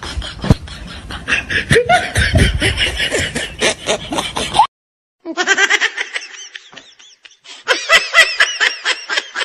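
Laughter in quick repeated ha-ha pulses, starting after a brief cut to silence about halfway through. Before the cut, a jumble of knocks and voices.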